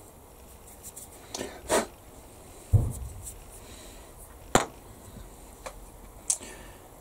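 Scattered small clicks and taps as tiny model-kit parts and hobby tools are handled and set down on a workbench, with a dull thump about three seconds in and a sharp click a couple of seconds later.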